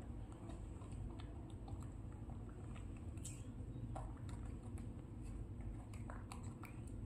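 Monkey chewing and nibbling cucumber: scattered small, crisp clicks and crunches over a steady low hum.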